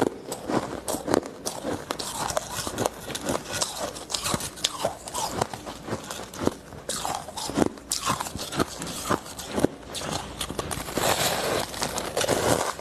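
Ice being bitten and chewed close to the microphone: a dense, irregular run of sharp crunches and crackles.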